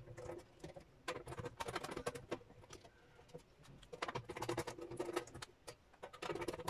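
Screwdriver work on a circuit board's mounting screws, with screws being set down on the table, sped up four times. It comes as a rapid patter of small, high-pitched clicks and taps.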